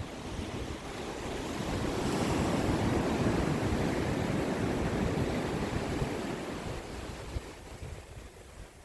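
Ocean surf: one wave breaks and washes up the shore, swelling over the first couple of seconds and fading away near the end, with a low wind rumble underneath.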